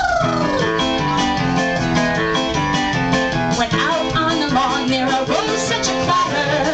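Background music led by plucked guitar, a steady run of picked notes over held chords.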